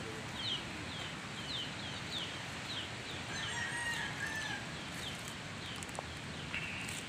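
A bird chirping over and over, short falling chirps about twice a second, with a longer call about halfway through, over steady outdoor background noise.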